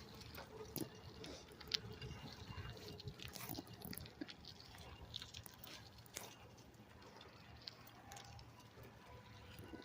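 Bicycle being ridden: faint scattered clicks and light rattles over a low steady rumble.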